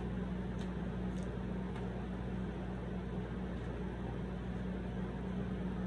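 Steady background hum with a constant low tone, like a fan or appliance, and three faint clicks of chewing in the first two seconds.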